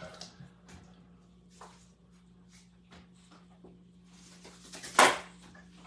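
Light taps and scrapes of a serving spoon ladling meat sauce onto a plate of spaghetti, with one louder, short noise about five seconds in. A low steady hum runs underneath.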